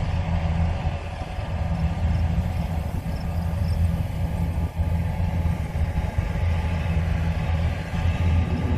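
Gleaner S98 combine harvester running steadily: a deep, even engine hum with a continuous mechanical rush over it.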